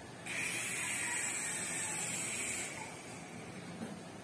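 Toy remote-control helicopter's small electric motor and rotor running, a steady high-pitched whir that switches on abruptly about a third of a second in and drops away around three seconds in, as the throttle is pushed up and let back down.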